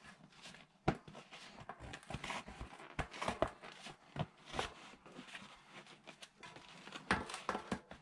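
Hands working a folding mountain-bike tyre's bead over the wheel rim: rubber scuffing against the rim, with irregular sharp clicks and knocks and a cluster of them near the end.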